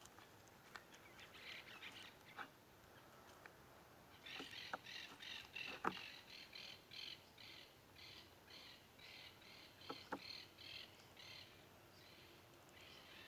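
Faint bird calling: a fast series of repeated high chirps, about three a second, for some seven seconds, starting a few seconds in. A few sharp clicks are scattered among them, the loudest about six seconds in.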